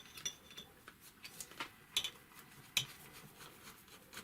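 Scattered light clicks and taps of hard parts being handled while a piece is taken off an industrial sewing machine, with two sharper clicks about two and nearly three seconds in.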